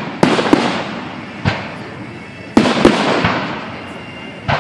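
Aerial fireworks shells bursting overhead: about seven sharp bangs at uneven intervals, each followed by a fading crackling hiss.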